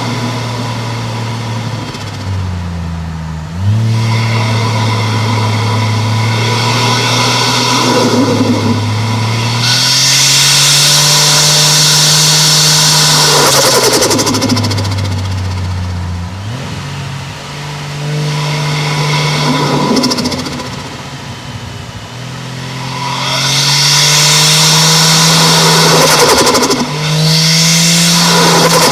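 Turbocharged 1JZ-GTE 2.5-litre straight-six engine and exhaust accelerating hard several times, the revs climbing and then dropping off sharply at each shift or lift. A loud rushing hiss rides over the two hardest pulls.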